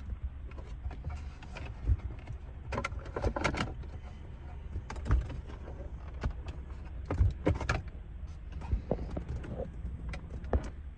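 Scattered sharp clicks and knocks of tools and plastic dashboard trim being handled, irregularly spaced, over a steady low hum.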